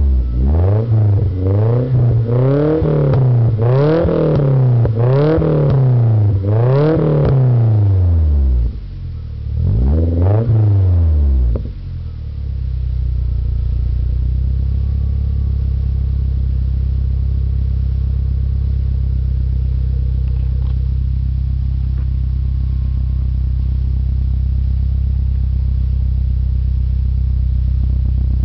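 A Nissan KA24E 2.4-litre four-cylinder engine breathing through a cheap catback exhaust with its silencer cut out. It is blipped in quick revs, about one a second, for the first eight seconds, revved once more around ten seconds in, then settles to a steady idle.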